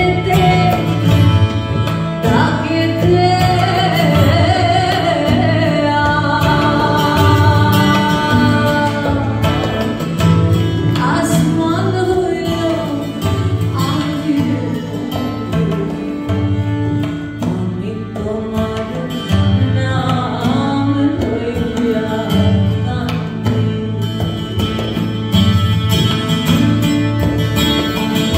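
Woman singing a melody with long, gliding held notes into a microphone. She is accompanied live by acoustic guitar, double bass, tabla and violin.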